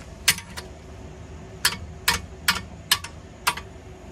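Sharp metal clicks, about eight at irregular half-second intervals, from a long-handled wrench turning a seized bolt at a car's rear wheel hub that has just broken free with penetrating oil.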